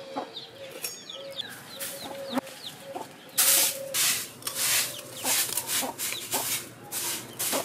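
A hen clucking and her chicks peeping in short chirps. From about halfway on come a run of louder dry swishing, scraping strokes.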